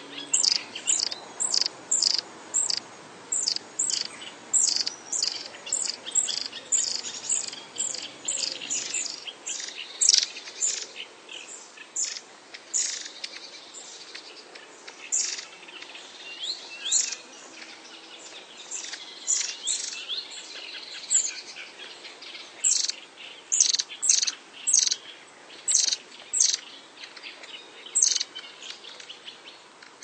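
Long-tailed tit calling: a long run of short, thin, very high-pitched calls, two or three a second, coming in bursts.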